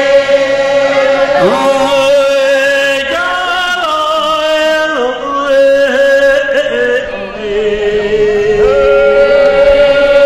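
Slow chanted singing with long held notes that step up and down in pitch every few seconds.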